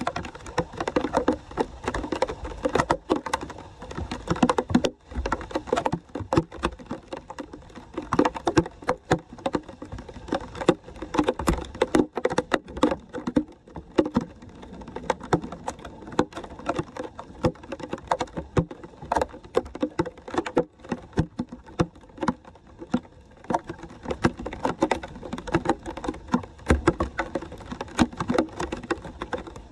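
Floodwater splashing and sloshing over a storm drain grate as leaves and litter are pulled off it by hand, with rain pattering on the water; irregular, uneven splashes throughout.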